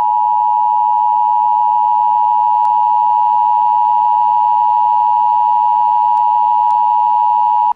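Emergency Alert System attention signal: a steady two-tone alarm at about 853 and 960 Hz, held for about eight seconds and cutting off abruptly near the end. It announces that an emergency broadcast message follows.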